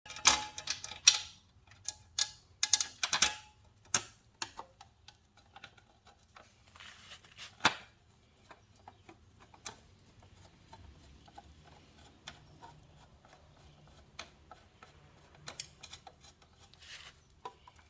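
Metal clicks and scrapes of a Phillips screwdriver driving a countersunk M6 screw through a dirt-bike skid plate into its hanger. A quick cluster of sharp clicks and knocks comes in the first four seconds, then only scattered faint ticks.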